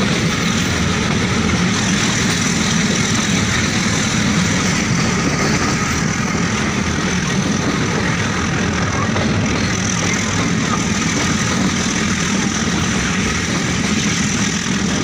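Steady running noise of a moving train heard from on board: an even, unbroken rumble and rush that holds at one level throughout.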